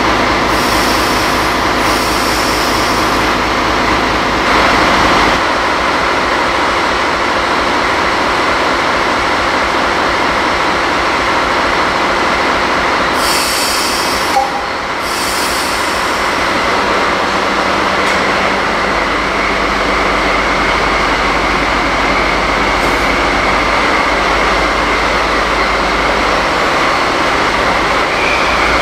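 DD16 diesel-hydraulic locomotive's engine running steadily, with short bursts of air hissing near the start and again about halfway.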